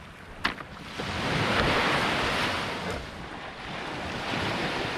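Small waves breaking and washing up a sandy beach, one surge swelling about a second in and another near the end. A single sharp click sounds about half a second in.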